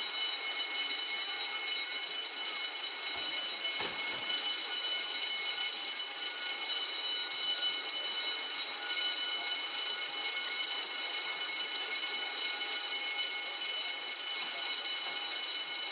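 Building fire alarm, set off by a resident's smoke detector in a false alarm, sounding continuously as a steady, high-pitched ringing tone with many overtones. There is a single faint knock about four seconds in.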